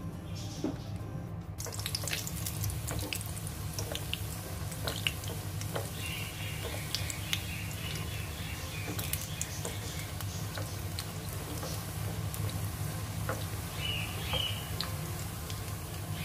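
Breadcrumb-coated bread pockets deep-frying in hot oil: a steady sizzle with many small crackles that starts suddenly a couple of seconds in.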